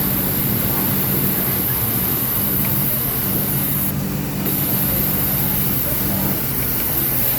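Pegasus flatseamer industrial sewing machine running steadily at speed, a constant mechanical hum with a high hiss that eases briefly about four seconds in.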